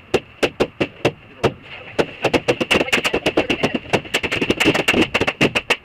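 Latex balloons being popped by hand in rapid, irregular succession: a few sharp pops a second at first, then many per second from about two seconds in. A steady high-pitched hum runs underneath.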